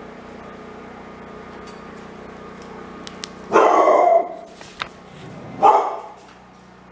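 A dog barking twice, a few seconds in and again about two seconds later, over a steady low hum.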